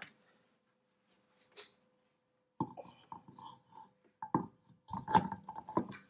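Knocks, clunks and metal scraping as an alloy wheel with its tyre is lifted and worked onto the hub's lug studs. The knocks begin about two and a half seconds in, after a quiet start, with the loudest just after five seconds.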